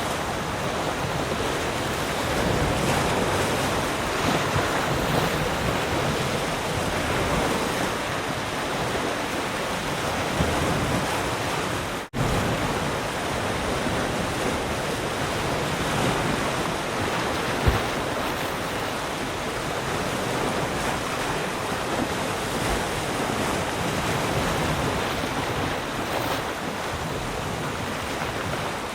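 Sea surf: waves breaking and washing on the shore in a steady rush that swells and eases slowly. The sound drops out for an instant about twelve seconds in.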